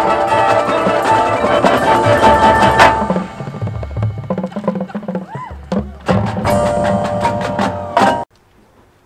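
Marching band playing loudly, brass and drums together with sharp percussion hits. The music thins to a quieter passage midway, swells back up, then cuts off suddenly near the end.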